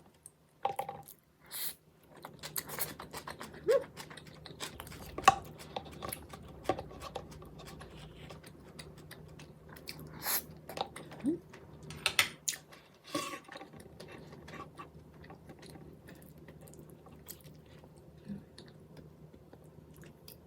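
Close-up chewing and wet mouth sounds of eating rice from a soy-marinated crab shell with kimchi, with many short smacks and clicks and a few sharper taps.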